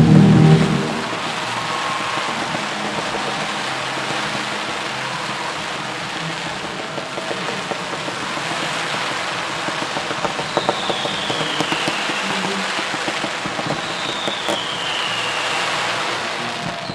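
Fireworks display: a deep boom at the start, then dense, continuous crackling like heavy rain. High whistles falling in pitch come through twice in the second half.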